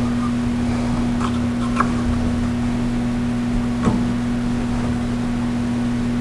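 Electro Arc Bolt Eater metal disintegrator eroding a bolt: a steady electrical buzz over a hiss of flushing water, with a few sharp crackles from the sparking electrode.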